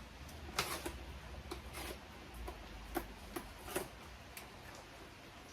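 Irregular sharp plastic clicks and ticks as a headlight's plastic trim clips and tabs are prised up to unclip the trim.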